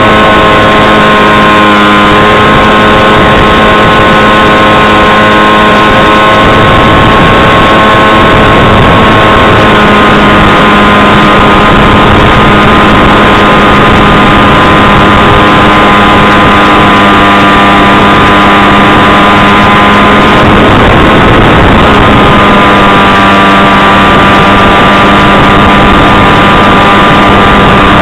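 Electric motor and propeller of a SkySurfer 1400 RC glider running, a loud steady whine that shifts pitch a few times with throttle, over heavy wind noise.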